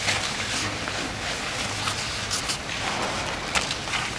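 Crowd noise from spectators in a large sports hall: a steady hubbub with a few short, sharp sounds around the middle.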